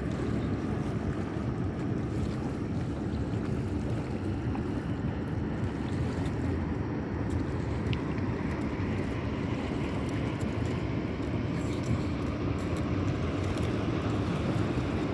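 Steady low rumble of wind on the microphone by open water, with the faint drone of a distant motorboat crossing the river.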